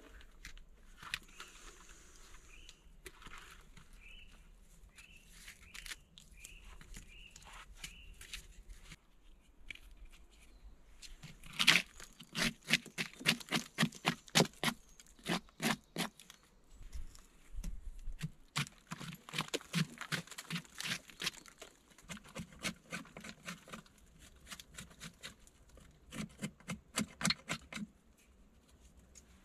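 Quick repeated strokes of a hand tool working wood or earth, about three or four a second, in several bouts with short pauses. Faint bird chirps come before the strokes start.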